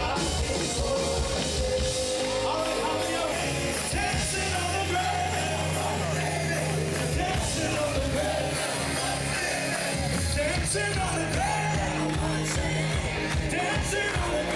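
Rock worship band playing with a singer: held bass notes under drums and electric guitar, with a sung melody over the top.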